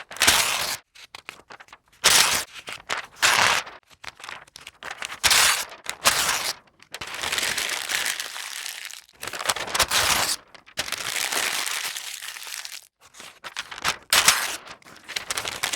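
Paper being torn and crumpled in a series of separate takes: short dry bursts alternating with longer continuous stretches of paper noise.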